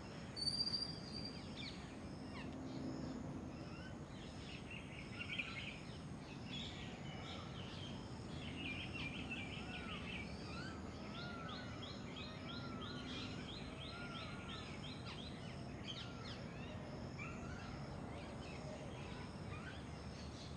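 Small birds chirping and trilling over a steady background hiss, with a brief high whistle about half a second in and a fast run of rapid chirps around the middle.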